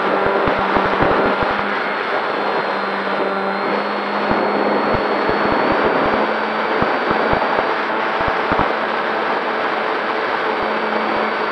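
Electric motor and propeller of a Durafly Tundra RC plane running steadily in flight, heard from a camera on the plane itself, with wind rushing over the microphone and many short low buffeting thumps. A thin high whine steps up slightly in pitch twice.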